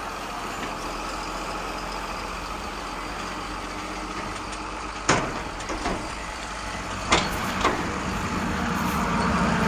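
Steady truck engine sound running, with three sharp knocks, the loudest about five seconds in.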